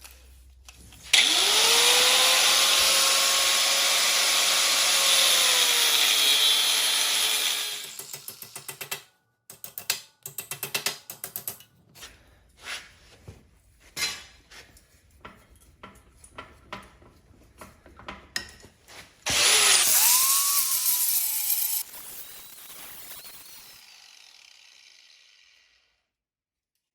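Angle grinder spinning up and cutting metal for about seven seconds, its motor note rising, holding steady and then winding down. Scattered clicks and knocks follow, then the grinder runs again briefly for a couple of seconds.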